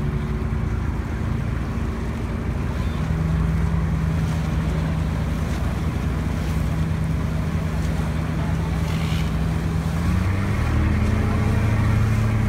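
Motorized outrigger boat's engine running steadily, its pitch stepping up about three seconds in and changing again near the end, with water rushing along the hull and wind on the microphone.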